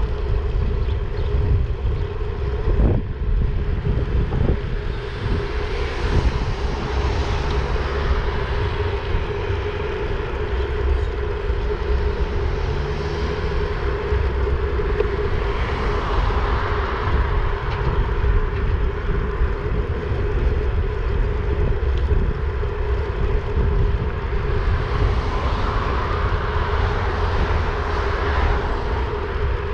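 Wind rushing over the microphone of a moving bike-mounted camera, with a constant steady hum underneath. Passing road traffic swells up and fades three times.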